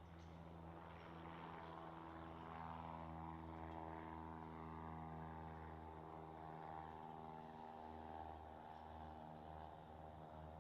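Faint steady drone of a propeller aircraft's piston engine, a little louder in the middle and easing off slightly toward the end.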